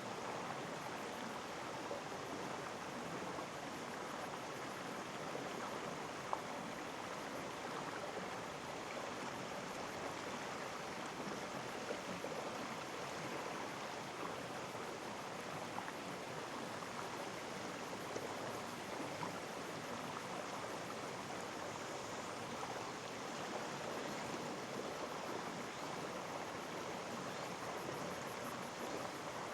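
Mountain stream in a gorge flowing steadily, an even rush of running water, with now and then a brief sharp tick.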